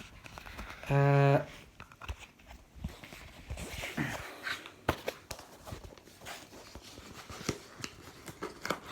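Cardboard box and packaging being handled and opened, with scattered clicks, knocks and rustles. About a second in, a short steady low-pitched buzz lasts about half a second.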